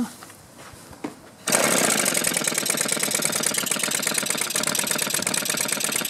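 Echo handheld leaf blower's small two-stroke engine starting without choke: it catches about a second and a half in, runs steadily, and stops abruptly near the end. Its mixture screw has just been opened a quarter turn.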